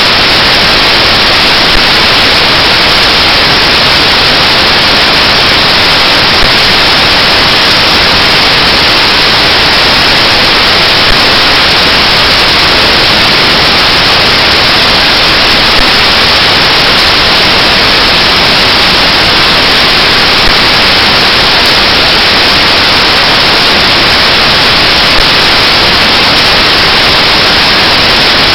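Loud, steady static hiss with no change in level, and a faint tick about every five seconds.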